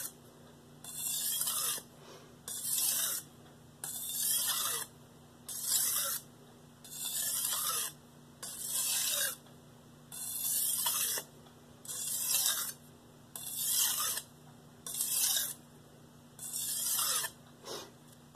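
Mercer nakiri blade in X30Cr13 steel drawn edge-trailing across a wet 320-grit Shapton Pro whetstone with very light pressure. Each stroke gives a short rasping hiss, about a dozen strokes at a steady pace. These are finishing passes on a soft stone that sheds a lot of abrasive, taken to clean up the burr.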